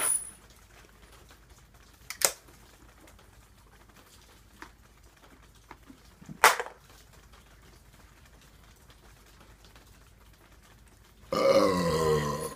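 A man lets out a long, deep belch of about a second near the end, after chugging a can of beer. Earlier come a few sharp clicks and knocks, the loudest about six and a half seconds in.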